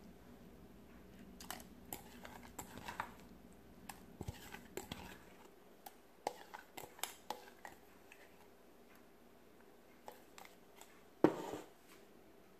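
Faint, scattered clinks, knocks and scrapes of a steel mixer-grinder jar and a spoon as ground onion, garlic and chili paste is scraped out into a plastic tub of water, with one louder knock near the end.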